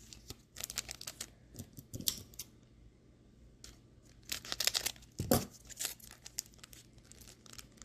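Scissors snipping through foil booster-pack wrappers, with the foil crinkling, in two spells of quick clicks and rustles; a dull thump sounds about five seconds in.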